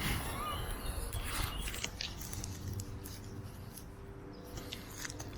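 Footsteps and rustling through undergrowth, with scattered small cracks and clicks.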